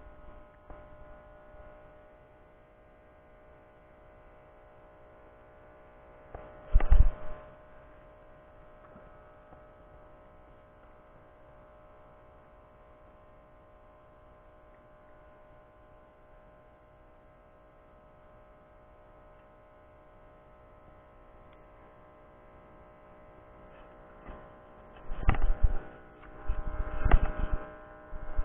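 A steady hum made of several held tones, with a loud bump about seven seconds in and a run of bumps and rustles near the end.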